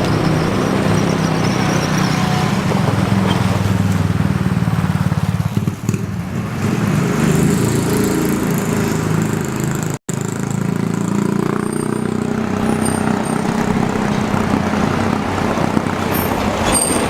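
A vehicle's small engine running steadily under way, with a brief cut-out about ten seconds in before it carries on.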